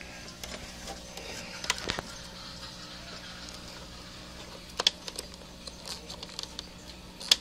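Plastic wiring connectors and wires being handled in a scooter's headlight housing: scattered light plastic clicks and rustles, sharpest about two seconds in, near five seconds and just before the end, over a faint steady hum.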